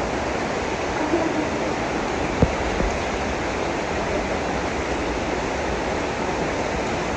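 Steady rush of flowing water, a stream or waterfall, with one short knock about two and a half seconds in.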